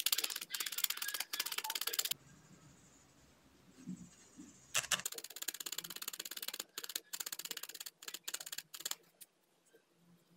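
Felting needle stabbing rapidly through wool into a foam pad, a fast run of soft ticks as a thin added layer of wool is worked into the surface. The stabbing stops for about three seconds about two seconds in, resumes, and thins out near the end.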